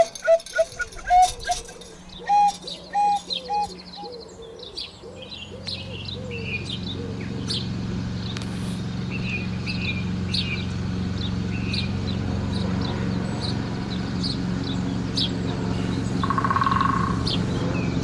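Birds chirping and singing over the low drone of an engine that fades in about five seconds in and grows steadily louder. A run of short, evenly spaced pitched calls comes in the first few seconds.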